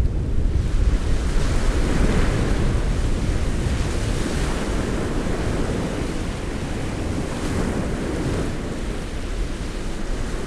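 Wind buffeting the microphone over the steady rush of the sea.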